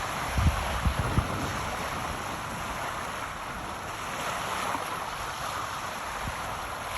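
Steady rushing wind-and-surf noise at the shore, with a few low buffets of wind on the microphone about a second in and once more near the end.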